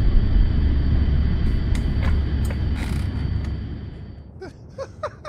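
Steady low rumble of an airliner's engines heard inside the passenger cabin, with a few light clicks. It fades out about four seconds in, and short pitched chirps follow near the end.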